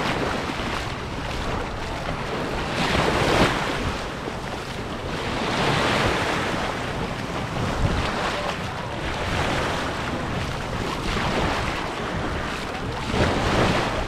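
Sea waves washing onto the beach, swelling and falling back about every two to three seconds, with wind buffeting the microphone.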